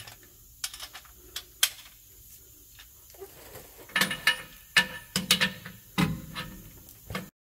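Hand socket ratchet tightening a mounting-plate nut under a motorhome's front axle: a few scattered metal clicks, then from about four seconds in, repeated clusters of sharp ratchet clicks with a slight metallic ring as the handle is swung back and forth. The sound cuts off abruptly near the end.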